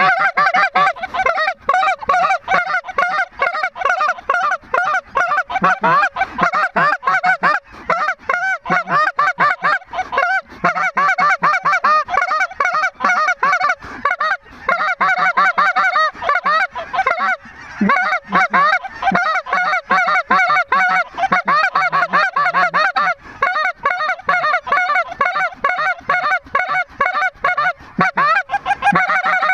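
A large flock of lesser Canada geese honking and clucking overhead, a dense, continuous racket of overlapping calls without a break.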